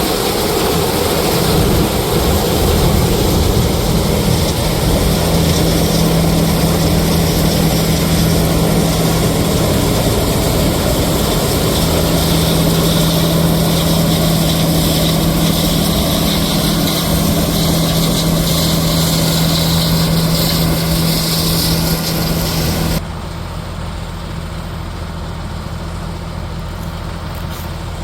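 A John Deere 9750 combine harvester running steadily under load, a dense mechanical drone with a steady hum. About 23 seconds in, the sound cuts suddenly to a quieter, duller machine noise.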